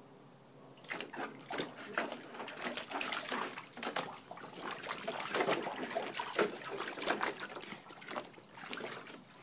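Harlequin Great Dane pawing and splashing water in a plastic kiddie pool, a quick irregular run of splashes that starts about a second in.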